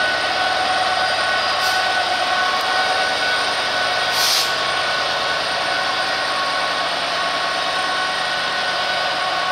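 DB Class 66 diesel-electric locomotive's EMD two-stroke V12 engine running steadily as the locomotive passes, several held tones over the drone. A short hiss about four seconds in.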